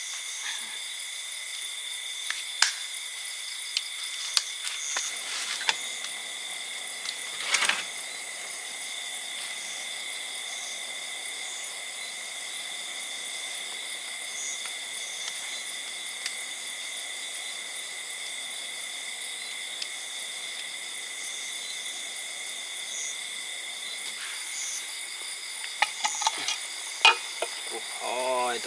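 Steady chorus of forest insects: several continuous high trills at different pitches, one with a faint regular pulsing, broken by a few scattered clicks and knocks and a brief louder rustle about seven and a half seconds in.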